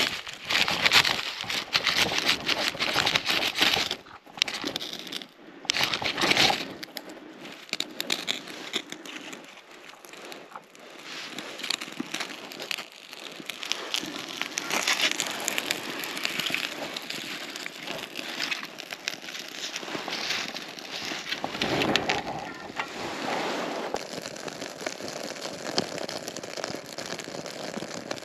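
Birch bark and match-light charcoal briquettes burning and crackling in a charcoal chimney starter as they catch. The crackling and rustling are loudest and densest for the first six seconds or so, then settle into a steadier, quieter crackle.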